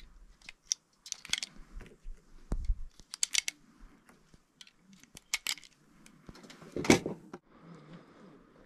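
Scattered light metallic clicks and rattles of gear being handled, with a sharper click about seven seconds in.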